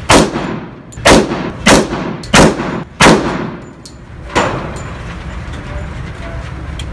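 Gunshots from a handheld gun at a shooting range: five loud shots in quick succession, roughly two-thirds of a second apart, then a quieter bang about four and a half seconds in.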